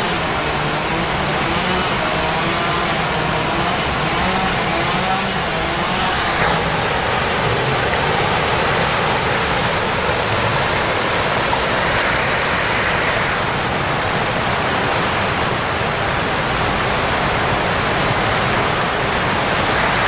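Falling water of a waterfall and a cascade over a small stone weir: a steady, loud rush.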